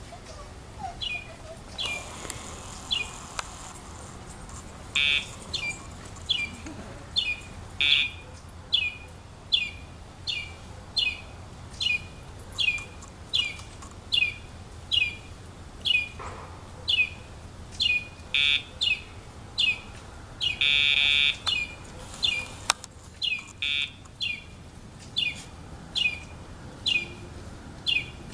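A bird chirping over and over, short falling chirps at about one and a half a second, with a few short buzzes in between, one longer buzz near the end.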